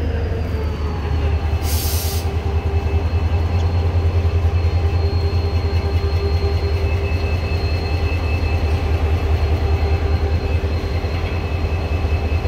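HGMU-30R diesel-electric locomotive idling with a steady low rumble and a steady whine over it. There is a short hiss about two seconds in.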